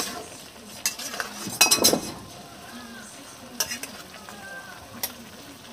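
Metal spatula stirring and scraping squash and greens in a stainless steel pan, with food sizzling underneath. There are several clattery scrapes, the loudest a cluster about a second and a half to two seconds in.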